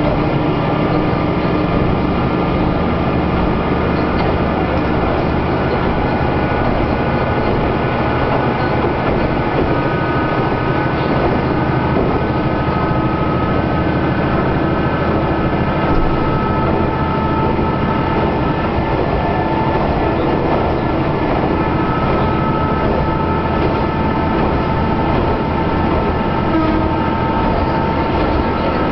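Kanto Railway Ryugasaki Line diesel railcar running steadily between stations, heard from inside the car: a constant rumble of the engine and the wheels on the rails, with a few steady tones that drift slightly in pitch.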